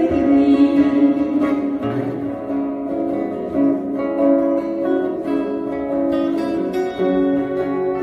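Two steel-string acoustic guitars strumming and picking an instrumental passage between sung verses, over long held keyboard chords.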